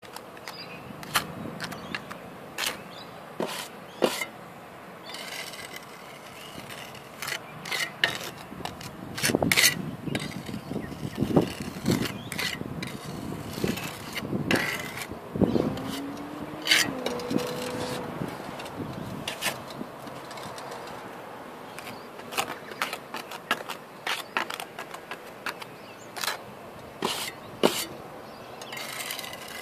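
Steel pointing trowel scraping and tapping against concrete ridge caps and roof tiles as flexible pointing mortar is pressed in and smoothed: irregular sharp clicks and short scrapes.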